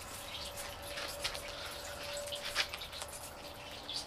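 Greenhouse watering system running just after filling up: a faint hiss of flowing water with a few scattered drips and ticks.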